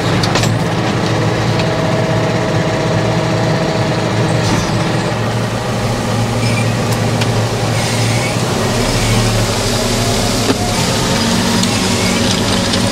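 Tractor diesel engine running steadily under load, heard from inside the cab while it pulls a chain meadow harrow across grassland, with a few short clicks and knocks.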